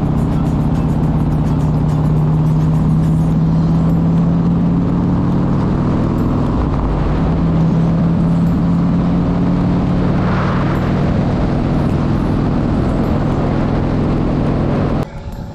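Small motorbike riding at a steady cruising speed: engine running with a steady low note, with wind rushing over the microphone. The sound cuts off just before the end.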